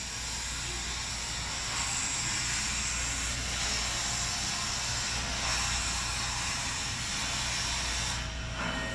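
Steady hiss of background noise with a low hum underneath, unchanging, with no distinct knocks or other events.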